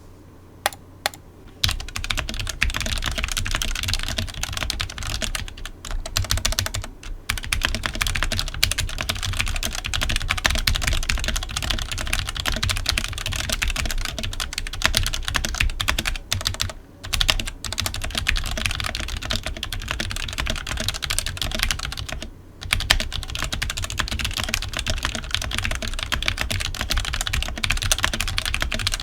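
Smart Duck XS61 61-key mechanical keyboard, stock with Outemu Black linear switches, ABS keycaps, an aluminium plate and a thin plastic case, being typed on fast: a dense, clacky run of keystrokes with short breaks about 7, 17 and 22 seconds in. The board rattles as it is typed on.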